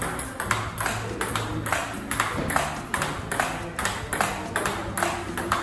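Table tennis backhand rally: the ball clicking off the rubber-faced bats and bouncing on the table in a steady rhythm, about four clicks a second.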